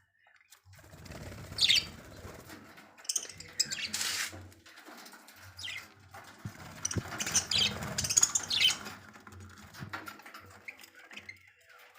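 Budgerigars chirping in short, scattered bursts, with rustling and wing flapping.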